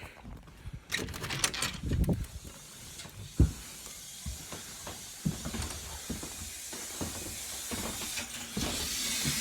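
Household plumbing: a few sharp metallic knocks and clinks from work on the fittings, one clearly louder, then water hissing through a pipe or valve, growing steadily louder and stepping up near the end.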